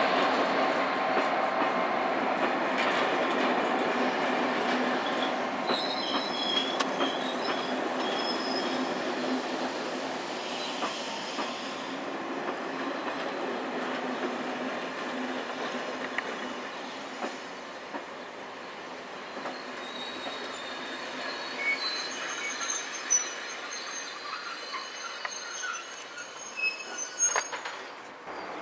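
Train of Corail passenger coaches rolling slowly out of the station, growing fainter as it pulls away. Its wheels give thin, high-pitched squeals on and off, with a few sharp clacks from the wheels on the track.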